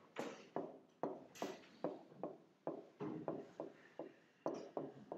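Stylus tapping and knocking against the glass of an interactive display while writing: a string of irregular short taps, about three a second.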